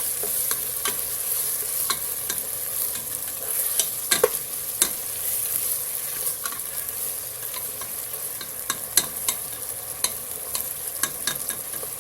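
Sliced chicken sizzling in a frying pan in its sauce while being stirred, with the utensil clicking and scraping against the pan at irregular intervals.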